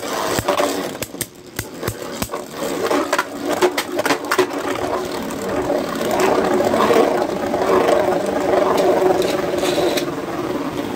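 Two Beyblade Burst spinning tops, one of them Bushin Ashura, whirring and scraping across a plastic stadium floor. For the first four seconds or so there is a run of sharp clicks as they knock into each other, then a steadier whirring grind.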